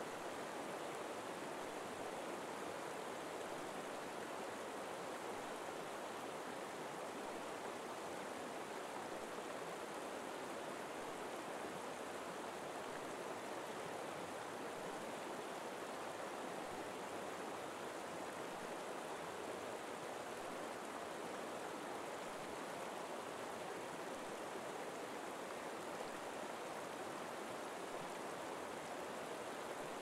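A forest river flowing, a steady, even sound of running water.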